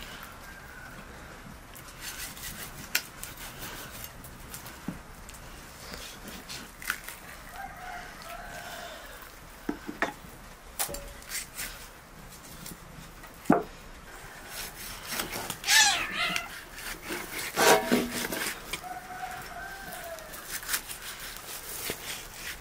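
Chickens clucking and a rooster crowing, several short gliding calls with the loudest over the second half. Scattered sharp taps and knocks of a knife cutting lamb meat on a wooden board.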